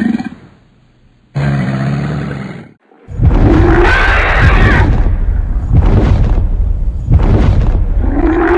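A large animal growling and roaring: a short growl, then a loud, deep rumbling call that swells twice.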